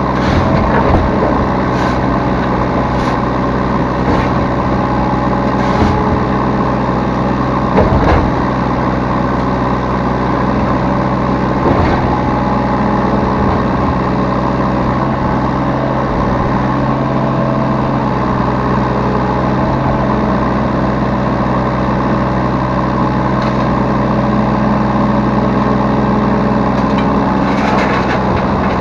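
Yanmar B3Σ mini excavator's diesel engine running steadily under the operator's seat, with a few short knocks and clanks scattered through it.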